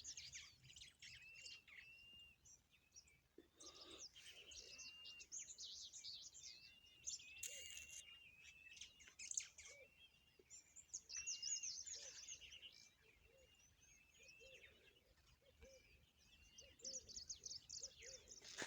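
Faint birdsong: several small birds chirping, with many short, repeated arched notes and quick high chirps throughout.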